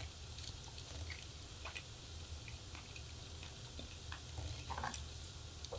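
A person chewing a bite of venison roast, with a few faint clicks scattered through, a small cluster of them near the end, over a low steady hum.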